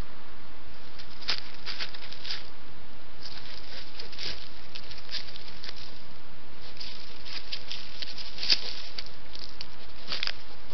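European badger walking through dry leaf litter: irregular crackling and rustling of leaves and twigs under its feet, close to a trail camera's microphone, over a steady hiss.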